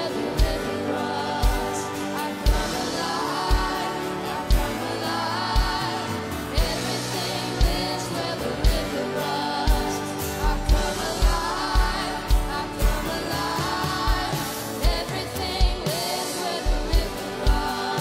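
A live worship band plays a contemporary Christian song, with a female lead singer and backing vocalists over acoustic guitar and keyboard. A kick drum keeps a steady beat of about one thump a second, coming more often in the second half.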